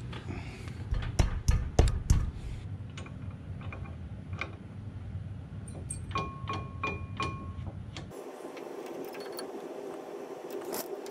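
Clicks and knocks of metal parts being handled at a truck's front wheel hub and brake rotor, with a few heavier thumps in the first two seconds. About six seconds in comes a short run of light taps with a ringing metallic note.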